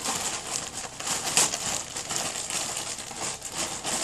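Clear plastic packaging bag crinkling and rustling in irregular bursts as a plush toy is worked out of it.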